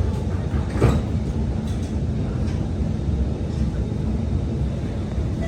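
Alstom R151 metro train heard from inside the car as it pulls away from a station: a steady low rumble, with one sharp knock about a second in.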